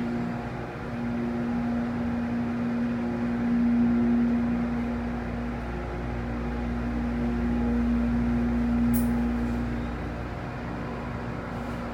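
Hydraulic elevator's pump motor running while the car travels, a steady pitched hum over a low rumble that eases off about ten seconds in. A single sharp click comes near the end.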